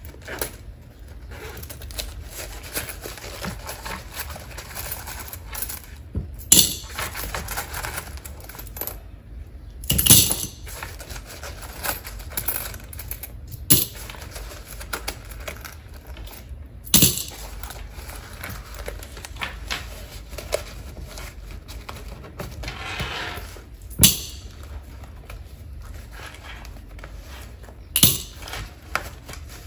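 Coins dropped by hand into a glass mason jar already holding change: about six sharp clinks a few seconds apart, with softer rustling of coins and a zippered wallet being handled between them.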